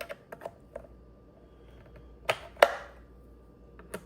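Screwdriver bits and their case being handled, making clicks: a few light clicks in the first second, then two sharper, louder knocks a little after two seconds in.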